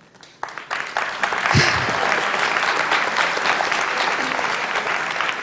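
Audience clapping in a lecture hall: many hands clapping together, starting about half a second in and keeping up steadily.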